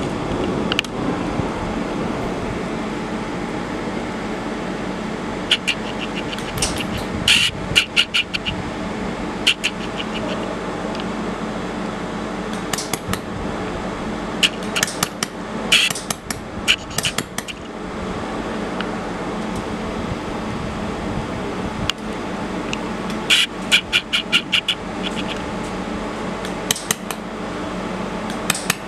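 Thin sheet-metal lattice parts being handled, clinking and tapping against each other with short metallic rings in several clusters, over a steady machine hum.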